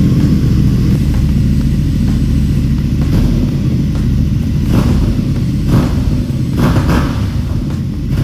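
CFMOTO 450MT's 449 cc parallel-twin engine running through its exhaust, a loud, low, steady note with a few brief swells partway through.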